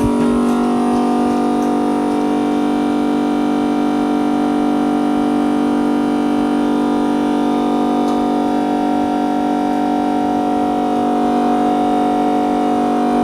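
Built-in vacuum pump of a 5-in-1 LCD separator machine running with a steady hum that starts at once and holds an even pitch.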